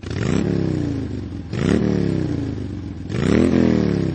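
Motorcycle engine revved three times, about a second and a half apart, each rev climbing quickly and then dropping back towards idle.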